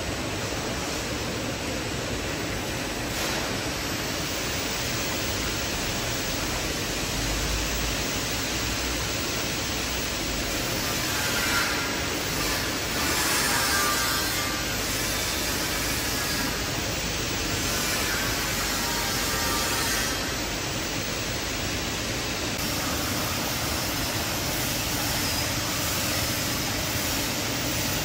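Water churning and rushing steadily through a stainless-steel chicken-washing tank on a poultry processing line. From about 11 to 20 seconds in, a wavering higher tone rides over the rush.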